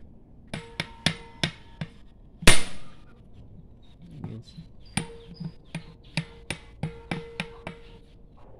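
Hammer blows on a hand impact driver set into a starter motor's housing screw: a dozen or more sharp metal strikes at an uneven pace, each with a short ring, the loudest about two and a half seconds in. The blows are meant to break a stuck screw loose.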